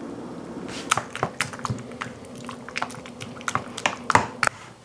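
Warm cream mixture poured into a stainless steel bowl of baked potato, then a spoon stirring and mashing the potato. There are wet squishing sounds and irregular clicks of the spoon against the metal bowl from about a second in.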